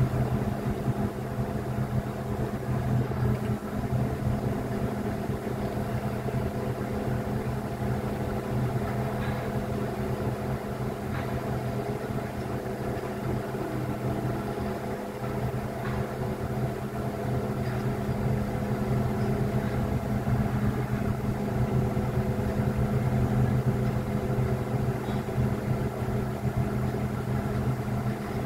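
Crane engine running steadily at idle, an even hum.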